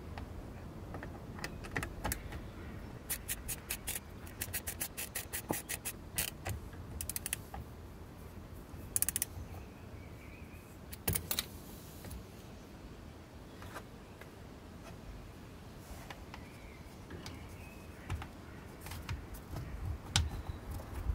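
Ratchet clicking in quick runs of about five clicks a second as a socket extension turns a radiator fan shroud mounting bolt, with a few sharper metallic clicks and clinks of the tool and bolt.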